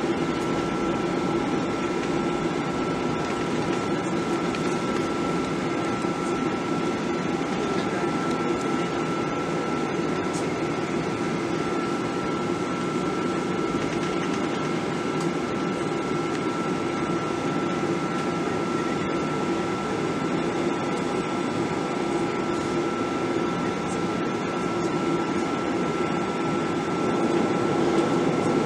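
Steady cabin noise of a Boeing 737-700 jet airliner: a constant engine and airflow hum with one steady high whine on top, growing slightly louder near the end.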